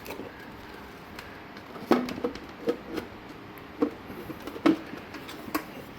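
E-bike battery being handled and fitted into the bike's battery mount: a series of sharp knocks and clicks, about seven over the last four seconds.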